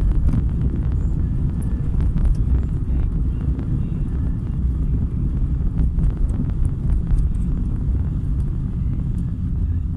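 Car driving on wet roads in rain: a steady low rumble of engine and tyres, with faint scattered ticks.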